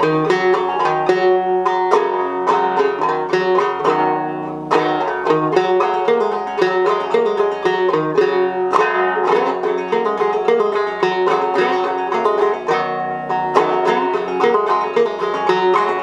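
Ceramic gourd-style banjo, a fired-clay body with an 8.5-inch head tuned well down, played solo: a steady run of plucked notes with a deep, resonant tone.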